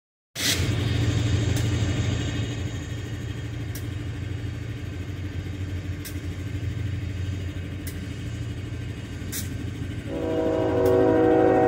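Diesel locomotive engine running with a steady low hum. About ten seconds in, a locomotive horn starts sounding a loud chord of several notes and holds it.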